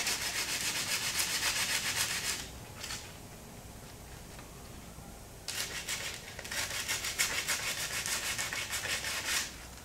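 Coarse 36-grit sandpaper rubbed by hand in quick back-and-forth strokes along the cut edge of a fiberglass grille shell, smoothing it down. The strokes stop for about three seconds partway through, then start again.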